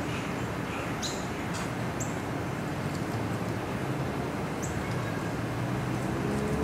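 Steady, distant rushing drone of two Lockheed Martin C-130J-30 Super Hercules four-engine turboprops passing high overhead. A few short, high bird chirps come about one, two and nearly five seconds in.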